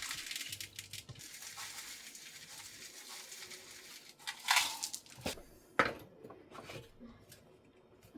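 Dishwasher salt poured into the dishwasher's salt reservoir: a steady granular hiss for about four seconds, then a few short knocks and clicks.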